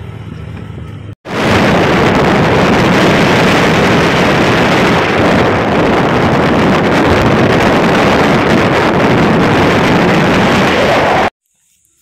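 Wind buffeting the microphone on a moving motorcycle, over engine and road noise. It comes in abruptly and loud about a second in, after a quieter stretch of riding noise, and cuts off suddenly near the end.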